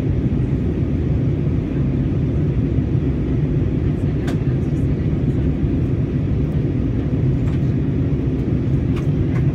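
Steady cabin noise of an easyJet Airbus A320-family airliner in flight, its engines and rushing air heard from a window seat as an even low drone, with two faint clicks.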